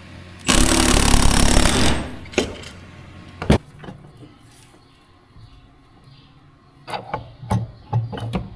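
Cordless impact driver run in one burst of about a second and a half, tightening a bolt through a pulley stack on a shaft. After it come scattered clicks and metal-on-metal clanks from parts being handled, busiest near the end.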